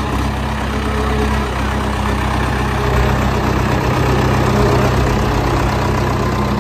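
HMT 5911 tractor's diesel engine idling steadily with a low, even throb.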